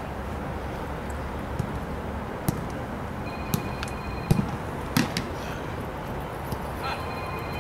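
Footballs being struck in shooting practice: a handful of sharp kicks of boot on ball, the loudest about four seconds in, over a steady background hiss.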